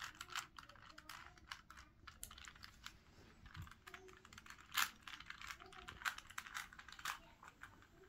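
A plastic 3x3 Rubik's Cube being turned by hand through a run of moves, the Sune algorithm: quick irregular clicks and snaps of the layers, several a second, with one louder snap about halfway through.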